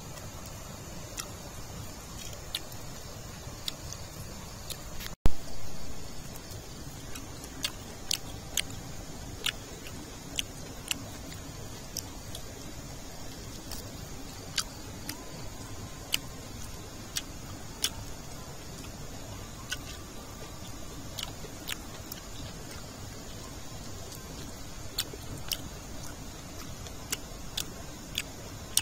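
Small twig campfire crackling: sharp, irregular pops about once a second over a steady low rumble, with one louder thump about five seconds in.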